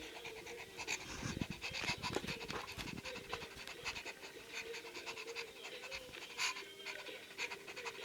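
Quick, rhythmic dog-style panting, several short breaths a second, over a faint steady hum.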